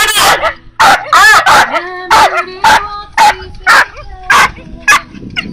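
Dog barking loudly and excitedly, about ten high barks and yips in quick succession, roughly two a second, stopping near the end.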